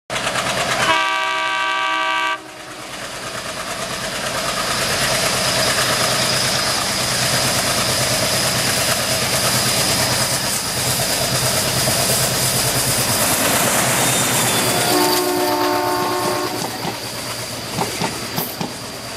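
Malabar Express passenger train's locomotive horn sounding a warning blast about a second in, and a second blast near the end, for people crossing the tracks. Between the blasts the train runs past with a loud rumble and clickety-clack of wheels over rail joints, the wheel clicks thinning out at the end.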